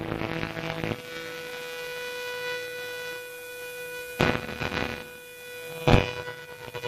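Amplified metal band between passages: a sustained tone rings steadily through the amplifier with a hum. Two loud hits, about four and six seconds in, are typical of the drum kit.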